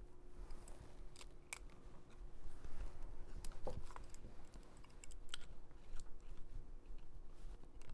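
Irregular small sharp clicks and ticks of baitcaster reel parts and pliers being handled while a reverse-threaded part is worked onto the reel's handle shaft, over a faint steady hum.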